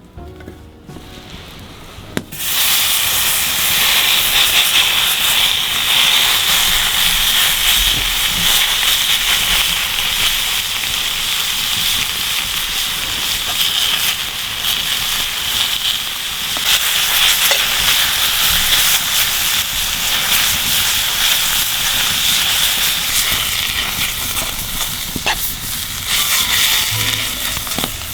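Food sizzling in a hot pan, starting suddenly about two seconds in as it goes onto the hot surface and then frying steadily, with an occasional small pop.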